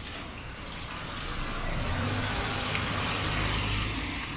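A motor vehicle passing close by on a wet road: tyre hiss and a low engine hum swell up, are loudest about three to four seconds in, then fall away.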